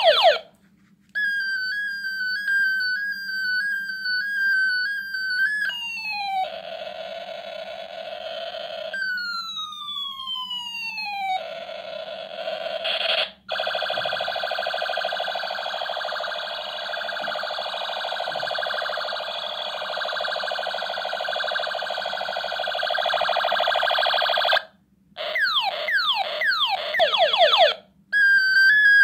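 Battery-powered toy ray gun's electronic sound chip playing its effects: a warbling siren-like tone, long falling laser sweeps, steady buzzing tones and, near the end, a quick run of short falling zaps, with brief breaks between patterns.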